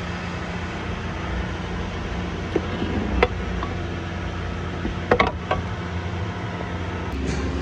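A steady mechanical hum, with a few sharp clicks about a third of the way in and again past the middle.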